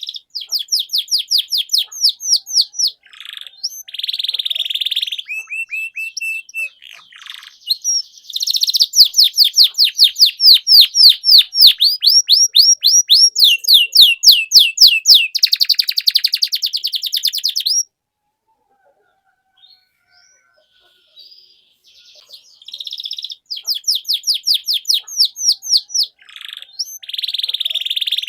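Canary in full, vigorous song: long runs of fast, rapidly repeated trilled notes, with a silence of a few seconds about two-thirds of the way through before the song starts again. It is a 'gacor' song used as a lure to set silent canaries singing.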